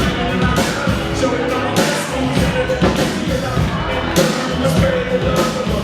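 Loud pop music with a steady drum beat and a pitched melody line.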